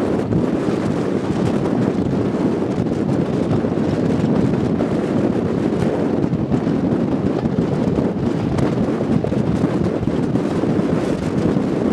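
Class 24 diesel locomotive's Sulzer engine working under power, heard from an open window of the coach behind it. Heavy wind buffets the microphone in a loud, steady rush.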